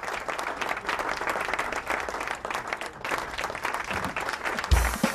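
Audience applauding, a dense, even clatter of many hands clapping. A low thump comes near the end.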